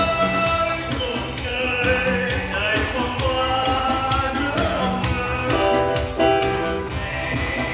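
A man singing into a microphone over amplified musical accompaniment with a steady beat, the sound filling a large hall.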